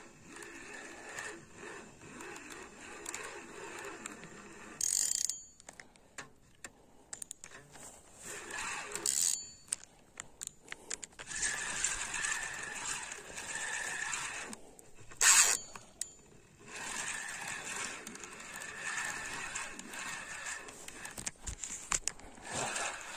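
Carp fishing reel being wound in while playing a hooked carp: a whirring from the reel's winding, broken by three short sharp rasps about five, nine and fifteen seconds in, the last one the loudest.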